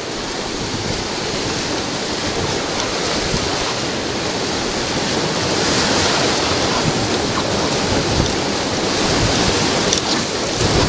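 Whitewater rapids rushing around a raft, a loud steady roar of water that swells a little about halfway through.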